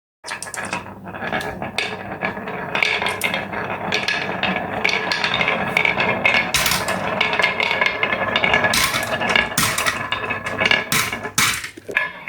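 Marbles rolling and clattering down a toy marble run: a dense, continuous rattle with many sharp clicks and knocks as they hit the track pieces. It starts suddenly about a quarter second in.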